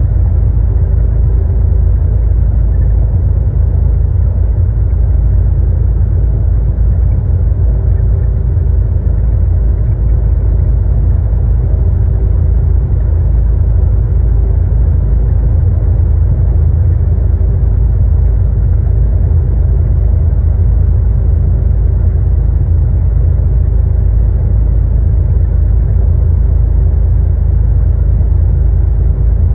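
Steady low rumble of engine and road noise inside a truck's cab cruising at highway speed.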